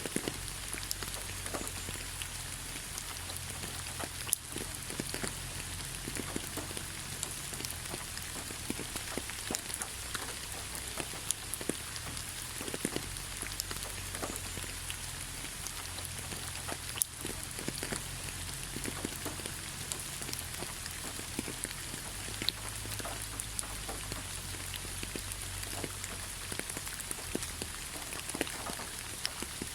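Steady rain falling, an even hiss with scattered individual drops pattering sharply throughout.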